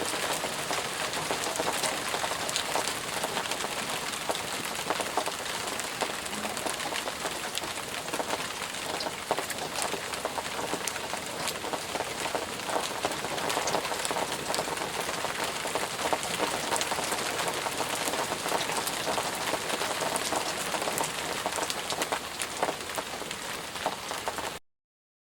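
Steady rain falling: an even hiss of many small drops striking a surface, which starts and stops abruptly.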